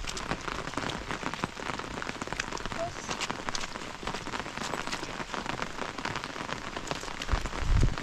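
Steady rain falling, with many close drops pattering sharply. A brief low rumble near the end.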